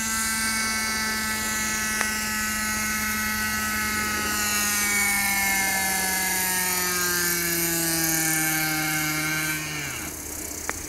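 Thunder Tiger Raptor 50 V2 nitro RC helicopter's glow engine and rotors running with a high whine. The pitch sinks slowly over the middle seconds, then falls away sharply near the end as the engine stops and the rotors spin down.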